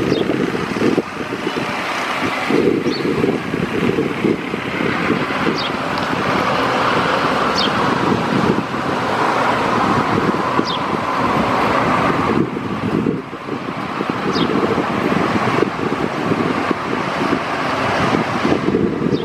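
Steady rushing engine and air noise of a Boeing 737-800 airliner, with wind buffeting the microphone.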